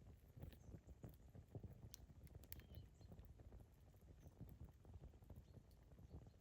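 Campfire burning faintly: a soft low rumble of flames with scattered sharp crackles and pops of burning wood, a small cluster of them about two seconds in.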